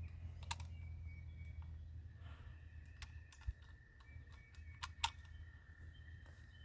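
A few faint, scattered clicks and taps, the sharpest about five seconds in, over a faint steady high-pitched tone that sets in about two seconds in.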